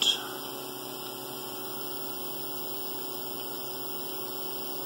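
Steady hum of a 3D printer's cooling fans and water-cooling pump running while the hot end heats up before printing, with no head movement yet.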